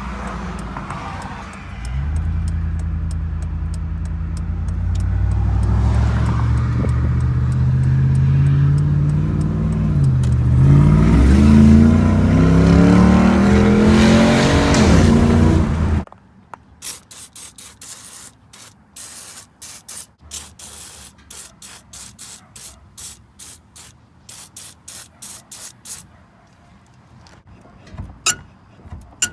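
2005 Dodge Ram 1500's 5.7 Hemi V8 running on fresh spark plugs and wires, idling and then revved up, its pitch rising and falling; it started far better than before the plug change. After about 16 seconds it cuts off suddenly and a quieter run of short sharp sounds follows.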